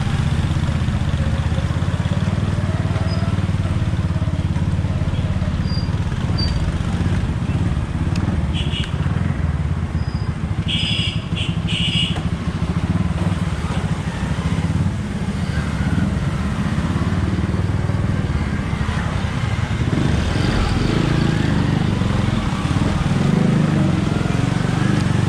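Small motorcycle engine running steadily while being ridden, heard close up from the bike itself. A few short high-pitched sounds come through near the middle.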